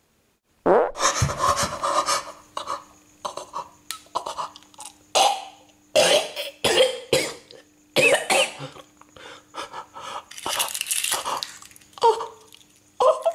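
Raw eggs being crushed and smeared by hand on a hard surface: an irregular run of short wet squelches and splats, mixed with cough-like breathy noises.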